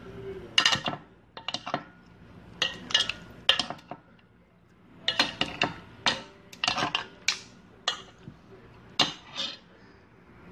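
A metal spoon stirs ice cubes through a wet salad in a bowl. Sharp clinks of spoon and ice against the bowl come in irregular clusters, with short pauses between.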